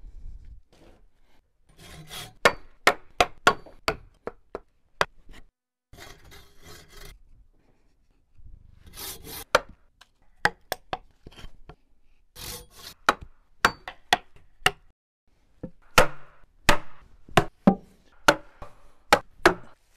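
Hand tools working green wood: short runs of sharp knocks and taps on wood, with rasping and rubbing scrapes between them.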